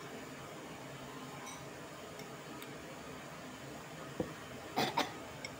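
Steady low room noise with a faint hum. Near the end come a single dull knock and then two short, sharp scraping noises close together: utensils handled against a ceramic bowl during a meal.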